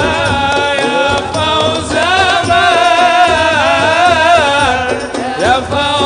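Arabic devotional song (qasidah) sung by a man in a high voice, with ornamented, wavering melodic runs over musical accompaniment.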